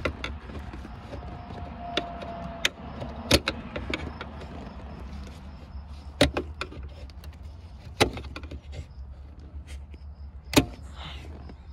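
About six sharp clicks and knocks, spread irregularly, as parts and a hand tool are handled under the car's dashboard, over a steady low hum.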